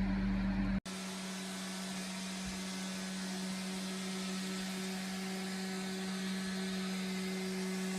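A small electric appliance motor running steadily, an even whir with a constant hum, starting abruptly about a second in.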